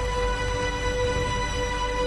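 Background music with sustained held notes and a low steady drone.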